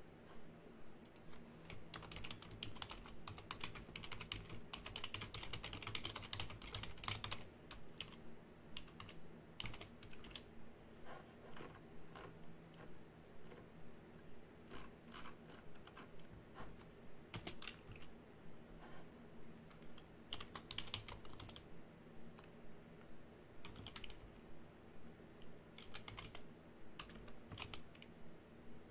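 Typing on a computer keyboard: a quick, dense run of keystrokes in the first several seconds, then slower, evenly spaced key presses.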